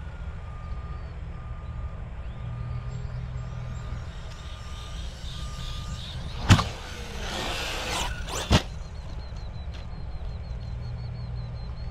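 Arrma Fireteam RC truck setting off: a sharp crack about six and a half seconds in, a second and a half of motor and tyre noise, then a single thud about two seconds after the crack. The start goes badly, which the driver puts down to something coming unplugged.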